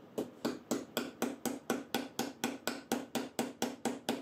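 Japanese genno hammer tapping a metal hammer-in threaded insert into a pilot hole in the end of a wooden board: a steady run of light, evenly spaced strikes, about four a second.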